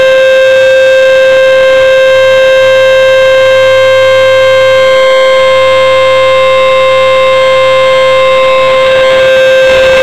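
Rotating outdoor tornado warning siren sounding a very loud steady tone at one unchanging pitch, swelling slightly near the end as the turning horn sweeps around. This is the warning system's scheduled monthly test signal.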